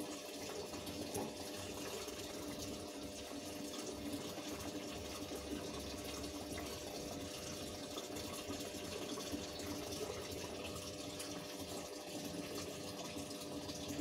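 Steady rush of water filling the tub of a Polytron single-tub automatic washing machine, with a faint steady hum underneath. The water is staying in the tub, the sign that the drain valve no longer leaks.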